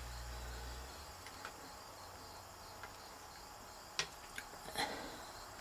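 Faint outdoor background of crickets chirring steadily. A low hum cuts off about a second in, and a few small clicks and taps follow, the sharpest about four seconds in.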